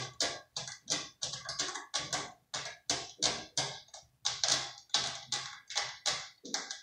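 A cat's claws scratching a cat-tree scratching post in quick rasping strokes, about three a second, as she sharpens her nails; each stroke carries a soft thud from the post. The scratching stops abruptly near the end.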